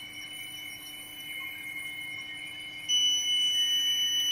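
Electronic beeping from a paper cutter's Accucut control panel: a steady high-pitched tone, joined about three seconds in by a louder, higher continuous beep as the panel flags a system error.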